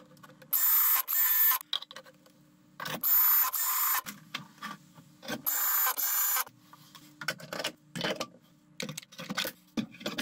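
Ryobi ONE+ cordless drill driving wood screws, its motor whirring in three pairs of short bursts. These are followed by a run of light knocks and clicks as tools are hung on the 3D-printed plastic mounts.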